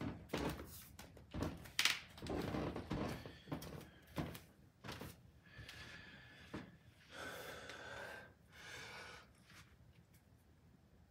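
A run of knocks and thuds as a man moves into place barefoot on a wood floor, then a few long, effortful breaths while he holds bodybuilding poses.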